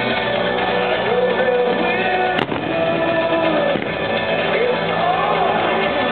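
Fireworks-show soundtrack music with singing, playing loudly and steadily, with one sharp firework bang about two and a half seconds in.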